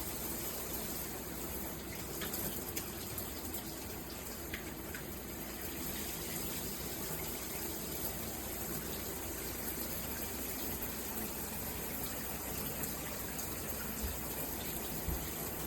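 Steady spray of water from a dual shower head, with the 8-inch rainfall head and the handheld sprayer running at the same time.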